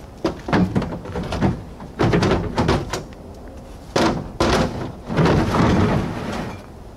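Plastic milk crates being set down and slid into storage cubbies under a plywood platform in a pickup bed: hollow clattering knocks and scraping in several bursts.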